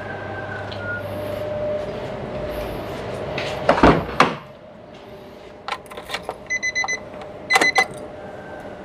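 A car's driver door handle pulled and the door unlatching and opening with a loud clunk about four seconds in, then a few light clicks as the driver gets in, followed by short high electronic beeps twice near the end.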